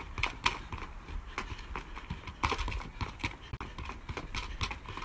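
Quick, uneven taps of a football being touched between the feet and on tarmac during a cone dribbling drill, several touches a second.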